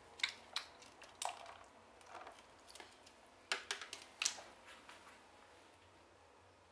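Ferrets playing with plastic clothespins in a shallow plastic tub of water: a string of sharp, irregular clicks, clatters and small splashes, the loudest a little past the middle, dying away to quiet near the end.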